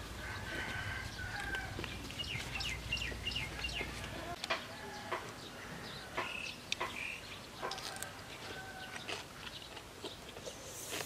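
Chickens clucking and calling, with a rooster crowing.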